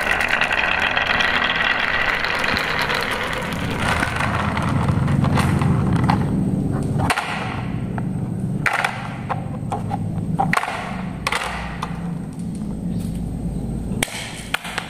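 Glass marbles rolling and clattering together down the wavy groove of a wooden marble-run track, a dense rattle for the first few seconds. Then come a low rumble and scattered knocks and clicks as a plastic toy truck and wooden craft sticks are handled.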